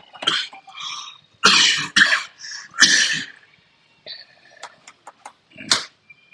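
A person coughing several times in short, loud bursts, with a few light clicks in between.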